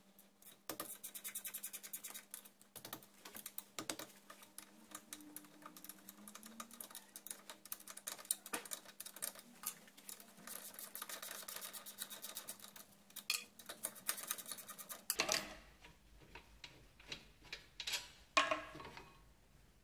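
Hand ratchet wrench clicking in fast runs as the caliper bracket bolts are turned out, with a few knocks near the end.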